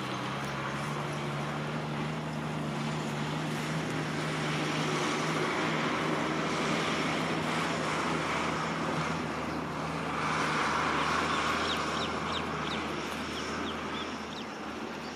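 Road traffic passing close by: an engine's steady low hum under tyre and road noise that swells and fades twice as vehicles go past. A run of short high chirps comes about two-thirds of the way through.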